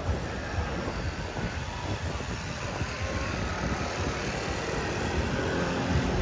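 Steady rumble of street traffic on a busy city avenue.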